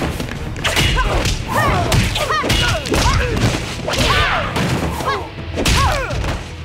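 Cartoon fight sound effects: a rapid string of punches, kicks and body thuds with whooshes of swung limbs and a staff, mixed with short grunts and cries from the fighters.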